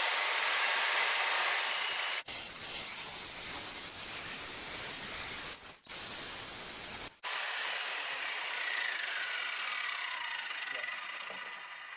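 Power saw cutting through a large metal pipe: a loud, harsh, steady cutting noise that breaks off suddenly a couple of times. From about seven seconds in, a whine falls steadily in pitch and fades as the tool winds down.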